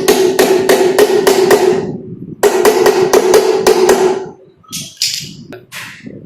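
Quick hammer blows, about four a second, in two runs split by a short pause about two seconds in, then a few lighter knocks near the end.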